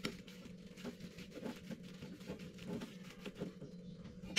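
Metal spoon stirring a moist paste of pounded shallot, garlic and dried shrimp with chili powder in a ceramic bowl: soft, irregular scrapes and light clicks against the bowl. A faint steady hum lies underneath.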